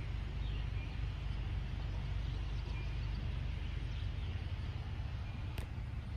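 Outdoor ambience: a steady low rumble with a few faint, short bird chirps and a soft click near the end.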